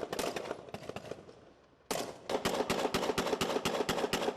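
Automatic gunfire: a string of rapid shots at the start that trails off, then from about two seconds in a long, fast burst of about seven shots a second.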